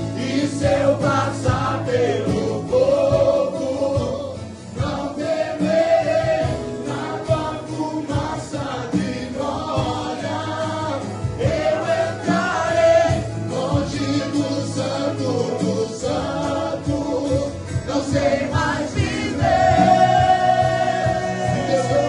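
Gospel worship music with voices singing together over instrumental accompaniment.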